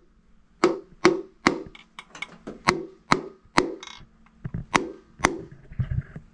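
Piston being tapped down through a ring compressor into the cylinder bore of a Ford 390 big block: a run of about a dozen sharp knocks, roughly two a second, with short pauses between groups.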